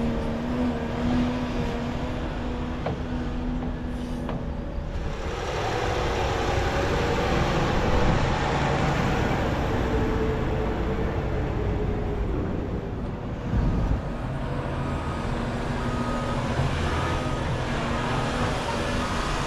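Diesel engine of heavy earthmoving equipment running steadily, then working harder and louder for several seconds mid-way before settling back, with one short thump shortly after.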